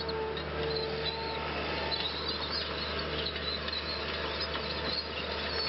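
Outdoor ambience of many small birds chirping over a steady low hum.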